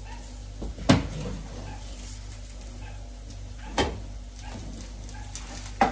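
Two short sharp knocks about three seconds apart over a steady low hum.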